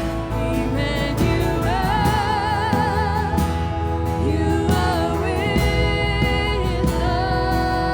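Live worship band playing a Christian song, with a lead singer's voice wavering in vibrato over sustained keyboard or guitar chords and a steady beat.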